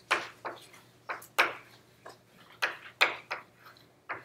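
Chalk on a blackboard during writing: a string of sharp, irregular taps and short strokes.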